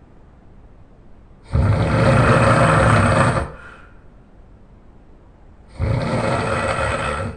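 A person snoring loudly: two long, rasping snores about four seconds apart, each lasting close to two seconds.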